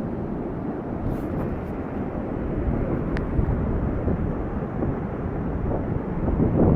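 Steady low rushing noise of wind buffeting the microphone outdoors, with a brief thin high squeak about three seconds in.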